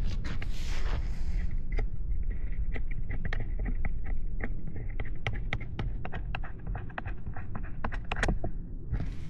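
Many small, sharp clicks and taps at irregular intervals as riding gear is handled at a parked motorcycle, over a steady low rumble.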